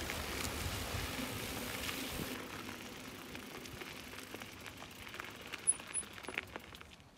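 Mountain bike ridden on a dirt road: tyre noise and scattered light rattling clicks, fading as the bike moves away.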